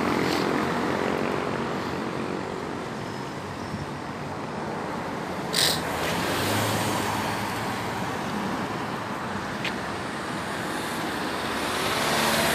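Road traffic on a city avenue: a steady wash of passing cars, swelling near the end as a vehicle goes by close. About six seconds in there is a brief sharp hiss.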